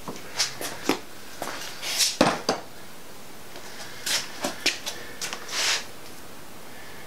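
Small metal parts and tools being handled on and around a bare engine block: scattered clinks and knocks mixed with short rustles. The sharpest knock comes a little past two seconds in.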